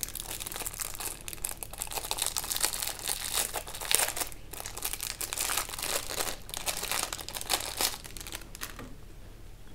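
Clear plastic wrapping crinkling as gloved hands pull it off a small plastic-wrapped enclosure, with irregular crackles that die down near the end.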